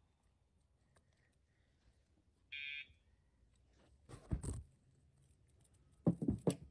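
Remote training collar giving one short electronic beep about two and a half seconds in, a tone cue to the dog. Low thumps and knocks follow a second or so later, and again near the end as a dog hops up onto a raised cot.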